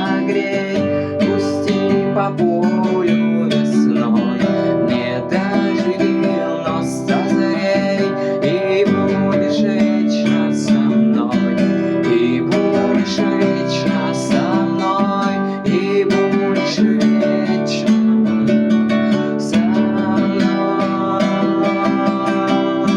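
Acoustic guitar playing an instrumental passage, strummed chords with picked melody notes, with no singing.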